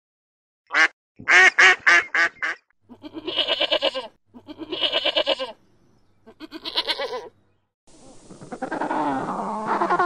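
A rapid run of short honks from Canada geese, then a sheep bleating three times, each bleat wavering and about a second long. Near the end a continuous call with gliding pitch begins, from an African penguin.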